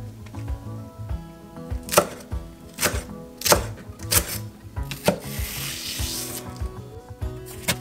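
A wide cleaver chopping green onion on an end-grain wooden butcher block: about six sharp knocks of the blade on the wood, and a longer crisp slicing stroke through the onion a little after the middle.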